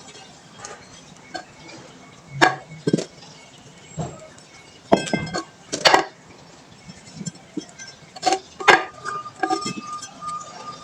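Scattered sharp clinks and knocks of hard objects being handled. A steady high tone begins about two-thirds of the way in.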